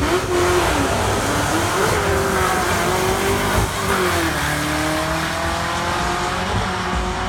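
Drag race launch: a race car's engine revving hard off the line and accelerating down the track, its pitch climbing and then dropping several times as it shifts gears.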